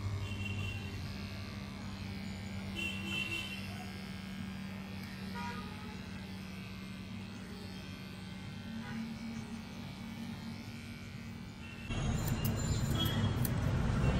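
Corded electric pet clipper buzzing steadily as it shears a long-haired cat's coat. About twelve seconds in, a louder, rougher noise abruptly takes over.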